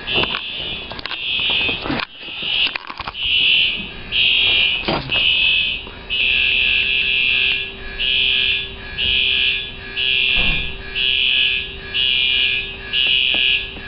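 Building fire alarm sounding: a high-pitched pulsing tone, about one beep a second. The alarm system has been going off by malfunction on and off, so this is a likely false alarm.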